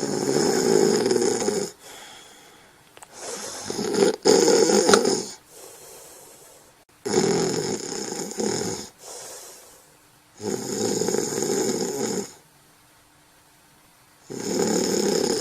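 Snoring in a steady rhythm: five snores, one about every three and a half to four seconds, with fainter breaths between them.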